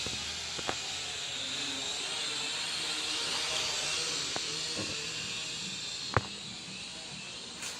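Small toy quadcopter in flight, its little motors and propellers giving a steady high hiss, with a few faint clicks and one sharper click about six seconds in.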